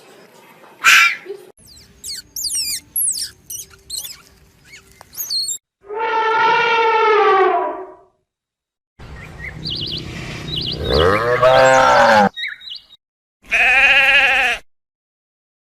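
A string of separate animal calls. First comes a short call, then a run of quick high bird chirps. After that come three bleats: one long and steady, one rising in pitch, and a short wavering one typical of a goat.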